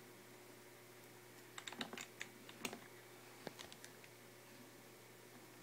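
Computer keyboard keys pressed: a scatter of quick, sharp clicks between about one and a half and four seconds in, over faint steady hiss.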